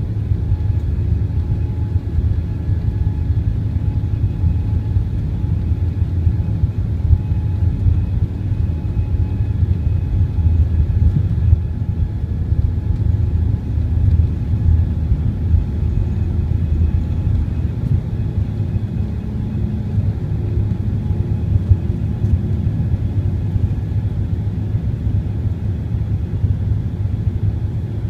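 Airliner cabin noise during the takeoff roll: a loud, steady low rumble from the engines at takeoff power and the aircraft running down the runway, with faint steady whining tones above it.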